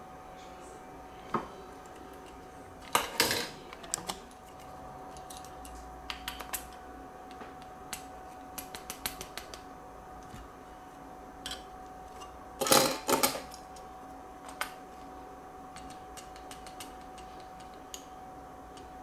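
Plastic parts of a Skymarks model airliner clicking and rattling as the tail and wing pieces are pushed and snapped into the fuselage. There are scattered small clicks and two louder bursts of clatter, one a few seconds in and one past the middle.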